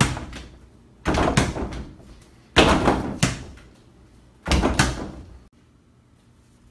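A small rubber basketball hitting a Spalding NBA Breakaway 180 over-the-door hoop. Each shot bangs the backboard and rim against the door with a loud thud that rattles and dies away over about a second. There are about four shots, a second or two apart, some with a quick second knock, and they stop abruptly near the end.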